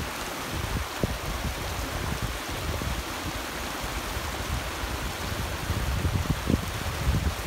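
Small mountain stream cascading over boulders: a steady rush of running water.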